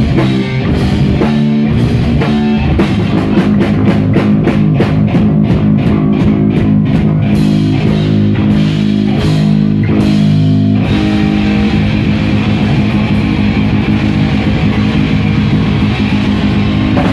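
Live rock band playing loud: electric guitar, bass guitar and drum kit. The drums strike a steady beat for about the first ten seconds, then the sound turns into a denser sustained wash over held low notes.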